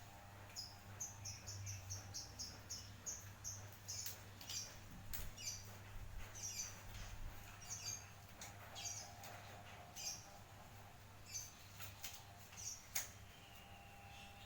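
Birds chirping in short repeated high calls, mixed with scattered clicks and rustles and a steady low hum.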